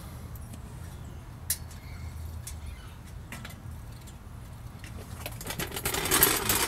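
Aerosol can of WD-40 sprayed through its red straw onto rusted exhaust flange bolts: a loud, sputtering hiss starting about five seconds in, after a single click about a second and a half in.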